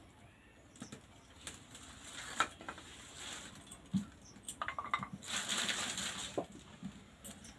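Dry palm leaves and twigs rustling, snapping and crackling as they are handled and pushed into a clay stove's firebox to light it, with scattered sharp clicks and a longer rustle about five seconds in.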